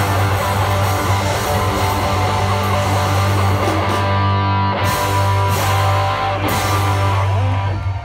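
Live rock band of electric guitars, bass and drums playing a song's closing bars: a held low note under sustained guitar chords, a few accented hits past the middle, and the music stopping at the very end.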